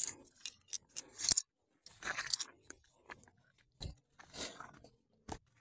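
Irregular crunching and scuffing, with a few sharp clicks: footsteps on a dry, sandy riverbank path, with a bamboo-framed crab lift net being handled.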